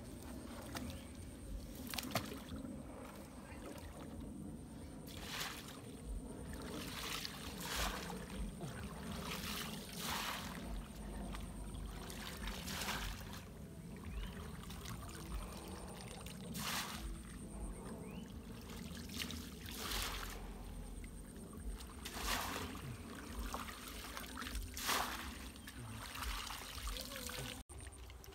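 Shallow muddy stream water splashing and sloshing as a person wades and pushes a woven bamboo basket trap through it, in irregular splashes every second or two.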